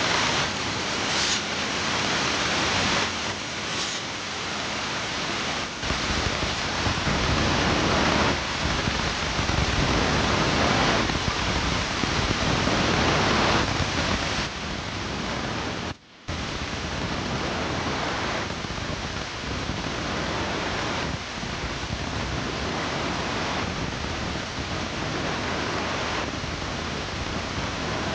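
Automatic wood saw-and-drill machine running: a steady, noisy din, louder through the middle, with a brief sudden gap about 16 seconds in.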